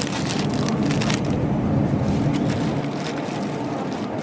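Plastic bag of whole carrots crinkling as it is handled, mostly in the first second or so, over a steady low rumble of background noise.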